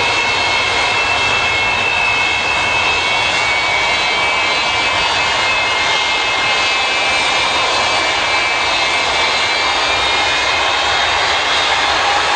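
Antonov An-124's four Progress D-18T turbofan engines running at taxi power: a steady jet roar with a high whine of several close tones over it.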